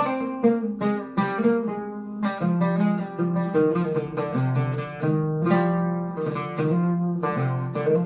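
Solo oud played with a plectrum: an improvised taqsim phrase in maqam nahawand, with quick runs of plucked notes and held notes.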